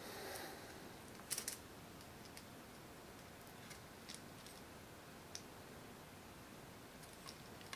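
Faint light clicks and taps as the fiberglass quadcopter frame plates are handled and brought together, with a small cluster of clicks about a second and a half in and a few single ticks after.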